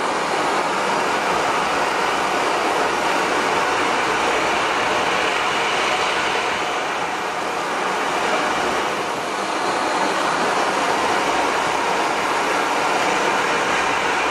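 Small jet engine running steadily: a loud, even rushing noise with a faint steady whine, easing off slightly for a moment about eight seconds in.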